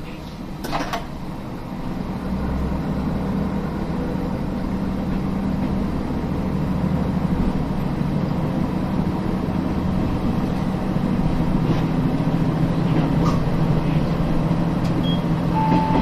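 KiHa 32 diesel railcar pulling away from a station: its engine revs up about two seconds in and runs steadily under power as the car gathers speed. A couple of sharp clicks come just under a second in, and a short high tone sounds near the end.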